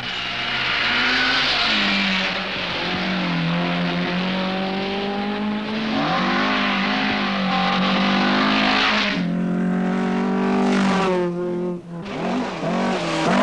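Rally cars at full throttle on loose stages, passing one after another. Engines rev up and down through the gears under a rushing hiss from the tyres and surface.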